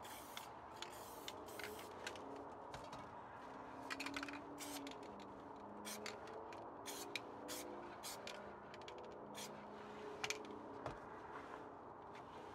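A sheet of paper crinkling and crackling under a gloved hand as it is rubbed flat against a spray-painted panel, in irregular sharp crackles with light scraping.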